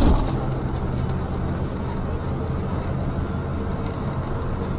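Steady low drone of a car's engine and road noise, with no sudden events.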